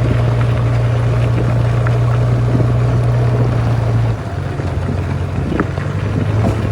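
Heavy diesel engine running steadily with a loud low hum; about four seconds in its note shifts and it grows quieter, as the engine eases off.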